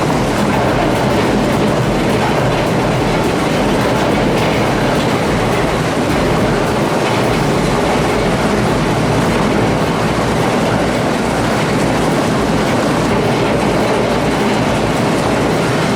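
A heavy industrial shredder running and grinding through material, a loud, steady mechanical clatter and rumble.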